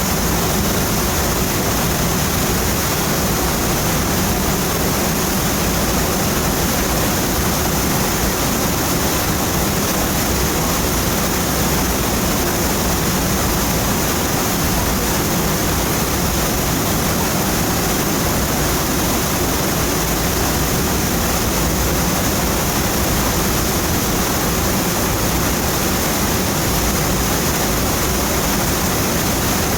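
Waterfall: falling water pouring steadily, a dense even rush with no breaks.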